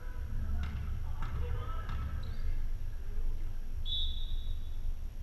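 A referee's whistle gives one held, high-pitched blast about four seconds in, signalling the serve. Before it come players' voices and a few sharp taps, over a steady low hum.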